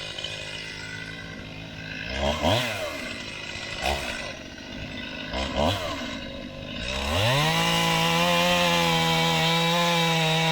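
Two-stroke chainsaw idling, blipped briefly three times, then run up to full throttle about seven seconds in and held there, its pitch wavering slightly as it makes a straight-down cut into a log.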